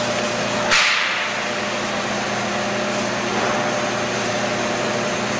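Steady electrical hum and machine noise of an induction heating system powered up while heating a long steel bar, with a short hiss about a second in.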